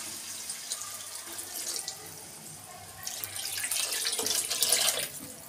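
Thin Manchurian-powder slurry poured from a bowl into a wok of hot gravy: a steady splashing pour that grows louder about three seconds in and stops near the end.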